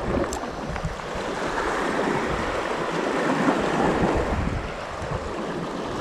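Strong wind buffeting the microphone over small waves washing against the shoreline rocks: a steady rushing noise that swells a little in the middle and eases near the end.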